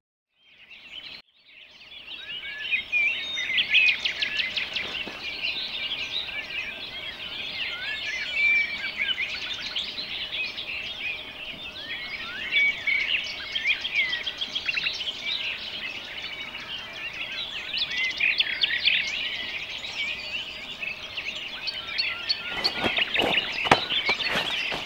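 Dawn chorus of many songbirds singing at once, dense and continuous, starting about two seconds in. A run of rustles and knocks comes near the end.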